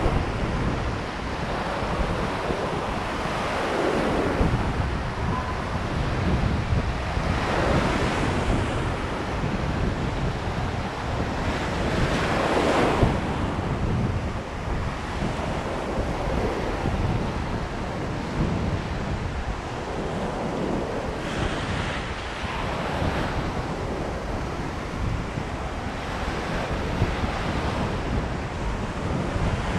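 Ocean surf breaking and washing up a sandy beach, rising in swells every few seconds, the loudest about halfway through, with steady wind buffeting the microphone.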